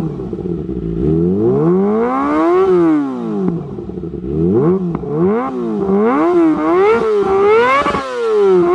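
Kawasaki ZX25R's 250 cc inline-four engine, through an Austin Racing GP1RR exhaust, revved up and down repeatedly: one slow climb and fall, then a run of quicker, sharper blips reaching higher revs near the end.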